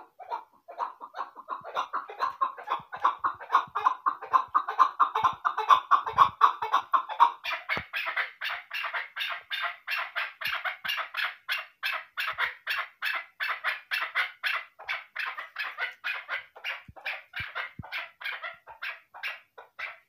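Chukar partridge calling: a fast, unbroken run of short repeated chuck notes, a few a second, that steps up higher in pitch about seven seconds in.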